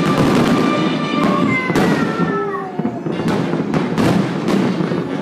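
Fireworks display: aerial shells bursting and crackling in quick succession, with music playing along.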